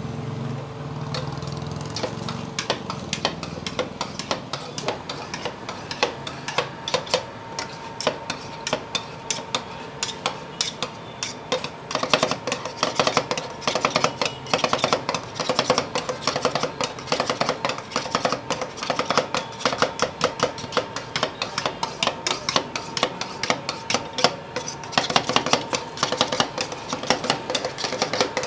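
Metal spatulas chopping and mixing dry fruits, mawa and milk on a rolled-ice-cream cold plate: rapid, uneven clacks of metal on metal that grow much denser and louder about halfway through.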